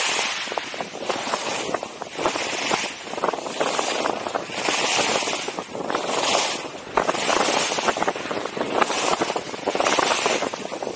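Skis scraping and hissing across packed snow, swelling and fading with each turn.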